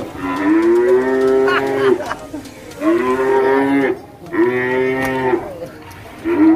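A cow mooing: three long, steady calls of about a second each, with a fourth starting near the end.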